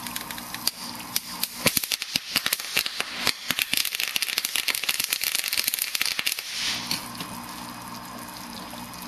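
HHO (hydrogen-oxygen) gas from a PWM-driven electrolysis cell burning in an irregular run of many distinct, sharp cracks, starting about a second and a half in and lasting about five seconds.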